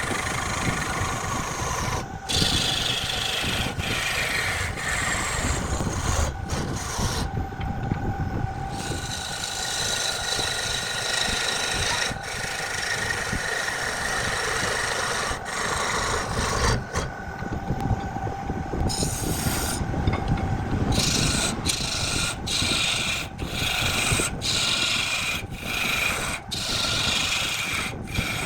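Wood being turned on a lathe: a tool scraping and rubbing against the spinning wood, giving a steady rasping hiss with faint steady tones underneath, broken by many brief dropouts.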